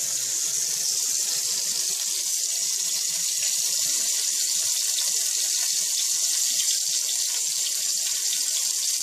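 Ground meat frying in oil in a pan, a steady sizzle with fine crackles.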